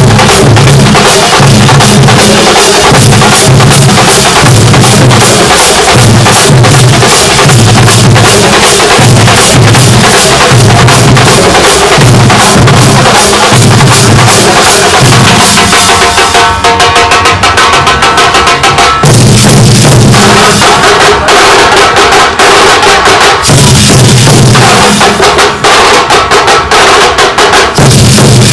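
Thambolam percussion troupe playing loud: deep bass-drum beats in a steady repeating pattern under dense, rapid sharp strokes. About two-thirds through, the deep beats drop out for a few seconds while a pitched, wavering tone sounds over the fast strokes.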